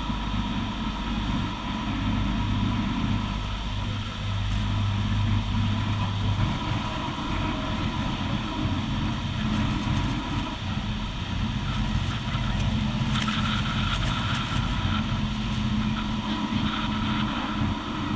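Tour boat's engine running with a steady low hum under a constant rush of water.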